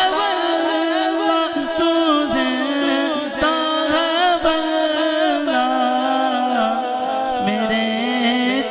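Solo male voice singing a naat unaccompanied through a microphone: one long, wavering melismatic line with no clear words, stepping down in pitch in the second half.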